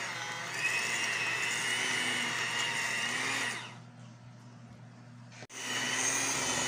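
Electric hand mixer running steadily with a whine, its beaters whipping cream in a stainless steel bowl. The sound drops away a little past halfway and comes back abruptly at full level about two seconds later.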